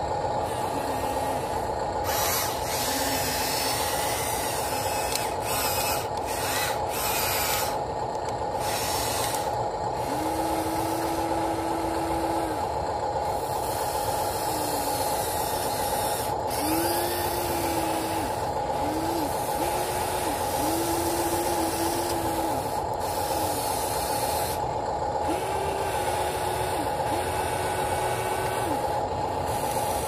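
HuiNa RC excavator's small electric motors whining in repeated short runs of one to two seconds as it slews and works its boom and bucket, over a steady hum and hiss.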